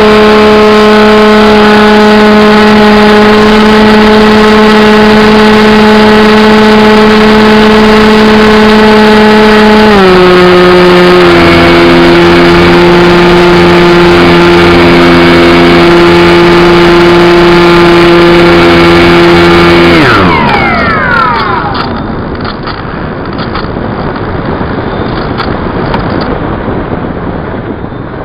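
Electric motor and propeller of an AXN Floater radio-controlled plane running steadily at high throttle, very loud close to the camera. The pitch steps down about ten seconds in as the throttle is eased. About twenty seconds in the motor winds down quickly, and airflow noise from the glide remains.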